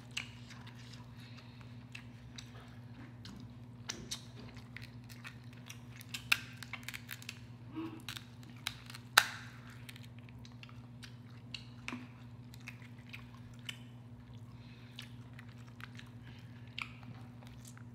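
King crab legs being broken open by hand and eaten: scattered sharp cracks and snaps of shell mixed with chewing. The loudest crack comes about nine seconds in, over a low steady hum.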